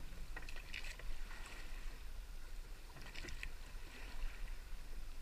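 River water lapping and splashing in short bursts close to the microphone, over a steady low rumble of wind on the microphone.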